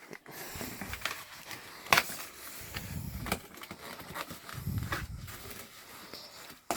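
Cardboard box and packing being handled as a vacuum cleaner is pulled out: uneven rustling and scraping with a few sharp knocks, the loudest about two seconds in and another near the end.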